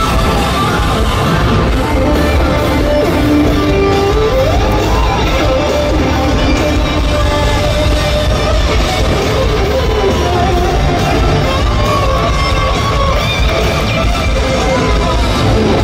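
A loud live hard rock band, recorded from the audience, with an electric guitar playing lead lines that bend up and down in pitch over the full band.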